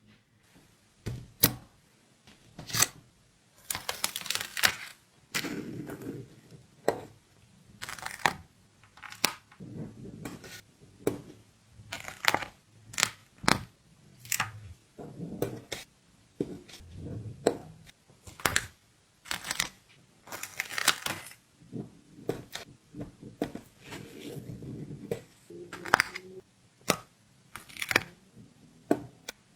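Stickers being peeled off their backing sheets with crackly tearing sounds, broken up by frequent sharp clicks and taps as they are handled and pressed down.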